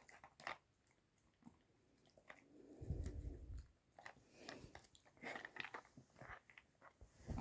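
Dachshund chewing and crunching treats, with scattered small clicks and a low thump about three seconds in.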